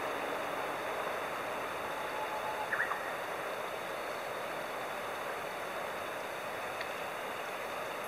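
Mountain stream flowing: a steady rushing of water.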